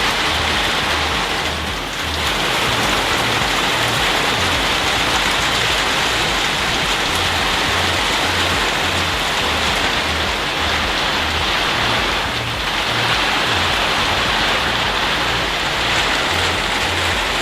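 Heavy rain falling in a steady hiss, with a deep, pulsing music bass line underneath.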